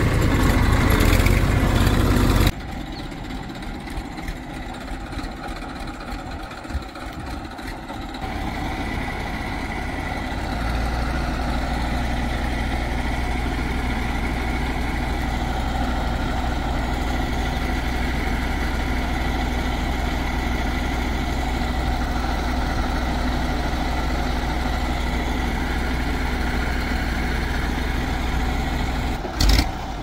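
Diesel engine of a backhoe loader or farm tractor running steadily, at or near idle. The sound changes abruptly about two and a half seconds in, and a steady low hum sets in about ten seconds in. A brief loud knock comes just before the end.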